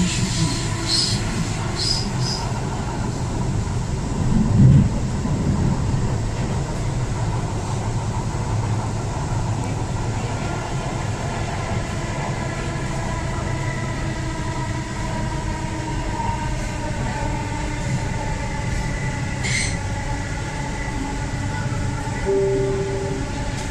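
Bangalore Namma Metro train running on its elevated track, heard from inside the carriage: a steady rumble of wheels on rail with the whine of the traction motors, and a loud thud about four and a half seconds in. A short beep sounds near the end.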